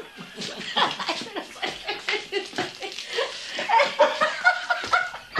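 A group of people laughing and chuckling.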